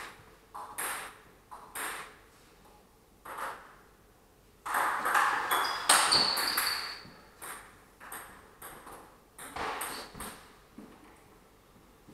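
Table tennis rally: the celluloid/plastic ball clicking off rubber paddles and bouncing on the table in a quick back-and-forth series. About five seconds in there is a louder, noisier stretch lasting a couple of seconds.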